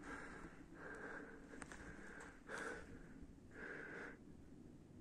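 Faint breathing close to the phone's microphone: short breaths in and out, about five in a few seconds.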